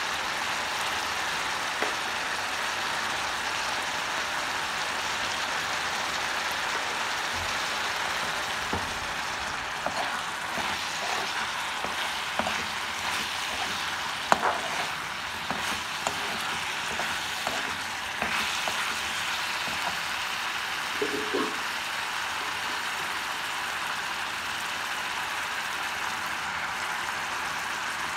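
Chicken pieces sizzling in oil in a wok, with a steady hiss. From about ten seconds in, a steel spoon stirs and scrapes against the pan in scattered clicks and knocks for ten seconds or so, then the hiss continues alone.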